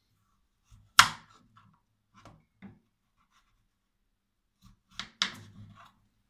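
Kitchen clatter of utensils and dishes: one loud sharp knock about a second in, a couple of lighter taps, then a quick double knock with a short scrape near the end.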